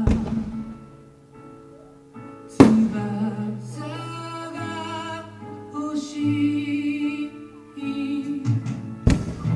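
Music with a singing voice, cut by sharp firework bangs: one at the start, the loudest about two and a half seconds in, and another near the end.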